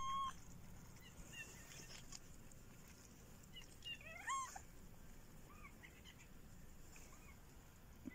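Young tabby kitten meowing: one clear meow that rises and falls about four seconds in, with a few faint short calls around it. A brief steady beep sounds at the very start.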